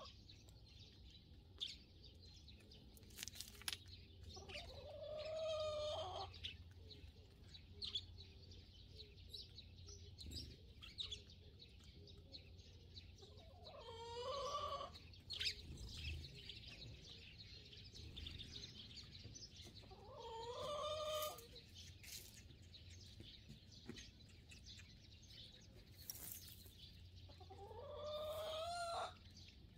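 Hen giving four drawn-out calls about every seven seconds, each lasting around a second and a half, the last one rising in pitch. Faint sparrow chirping and light clicks run underneath.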